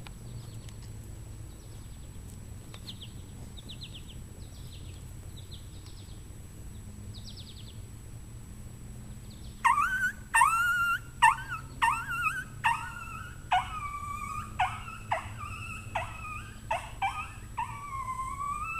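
Diaphragm coyote howler blown by mouth. About halfway through, a fast string of short, rising coyote-like yips starts, and it runs into a longer, wavering howl that slowly falls in pitch near the end.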